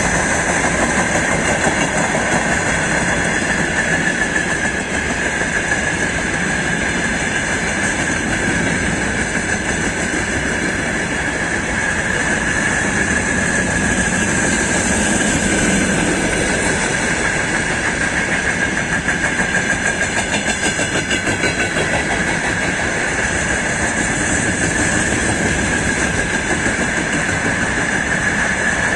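Freight train wagons rolling past at speed: a steady rumble of steel wheels on the rails with a rhythmic clatter over the rail joints, and a steady high-pitched whine above it.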